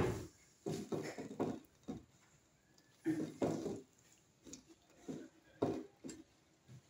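Wet squelching of hands working a thick red marinade into slices of mussel cracker fish on a plate, in short irregular bursts.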